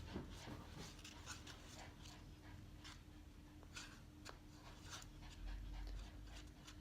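Near silence: room tone with a faint steady hum and a few soft, brief scrapes or rustles.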